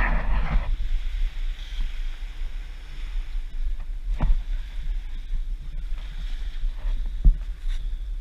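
Steady low rumble with a light hiss, typical of wind on the microphone, with a sharp knock about four seconds in and another about seven seconds in.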